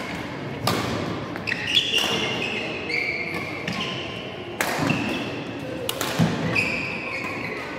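Badminton rally: sharp racket strikes on the shuttlecock, roughly one every second, with short high-pitched shoe squeaks on the court floor between them, echoing in a sports hall.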